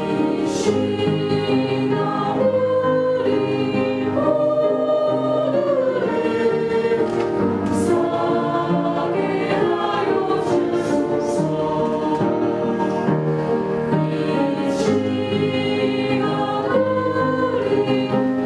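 Church choir singing a hymn in harmony, with long held notes.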